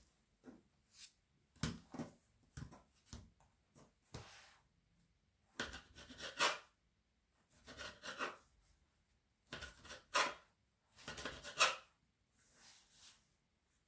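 Kitchen knife slicing through rolled tubes of pastry dough on a work surface: a series of about ten short scraping cuts with brief pauses between them.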